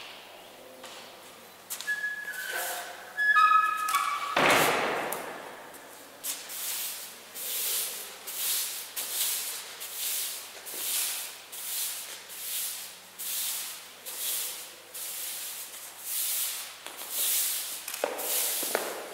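Straw broom sweeping a tiled floor in regular strokes, about three every two seconds, from about six seconds in. Before that come a few short high notes and a loud whoosh about four seconds in.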